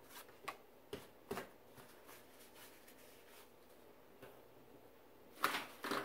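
Sheets of cardstock handled and slid on a cutting mat: a few light taps of paper early on, then a brief louder rustle and slide of card near the end.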